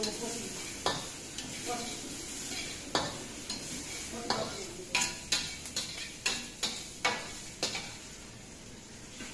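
Metal spatula scraping and clanking against a wok while shredded vegetables sizzle in it. The clanks come in a quick run between about four and eight seconds in, then ease off.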